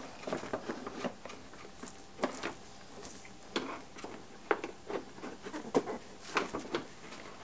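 Plastic aftermarket headlight housing, wrapped in protective film, handled and pushed into place in the truck's front end: irregular light plastic clicks, knocks and crinkling.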